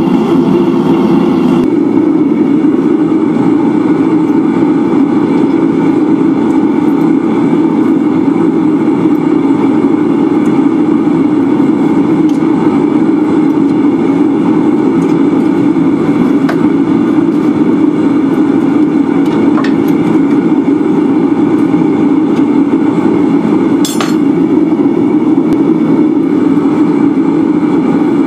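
Gas forge burner running steadily, a dense low rush of flame, with one sharp click near the end.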